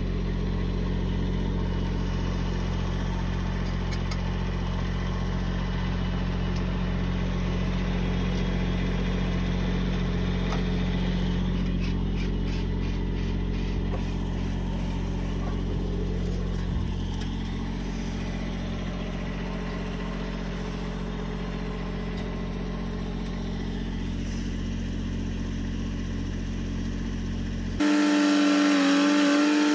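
John Deere dozer's diesel engine running steadily, heard close at the open engine compartment as a low, even hum. Near the end the sound cuts abruptly to something louder with steady pitched tones.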